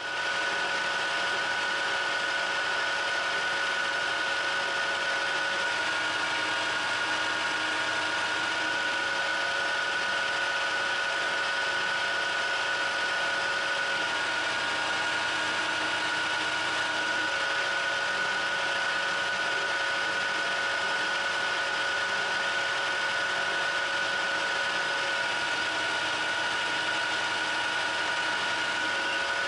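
Metal lathe running steadily with its four-jaw chuck spinning, the tool taking a turning cut on the bar. It makes a constant machine whine with a steady high tone.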